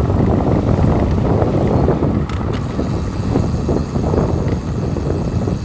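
Wind buffeting the microphone while riding a bicycle: a loud, steady low rush with no other clear sound.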